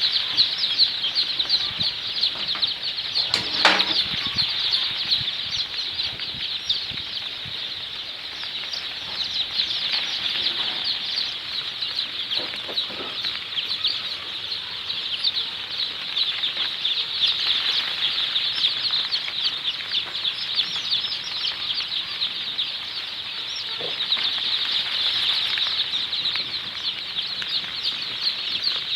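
A large flock of Sonali chicks cheeping continuously, a crowd of high-pitched peeps overlapping without a break.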